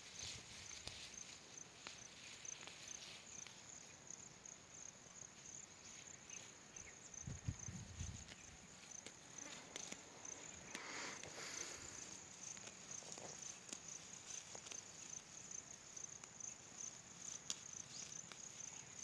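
Insects chirping in a steady, fast-pulsing high trill, faint, with scattered clicks and a brief low rumble about seven seconds in.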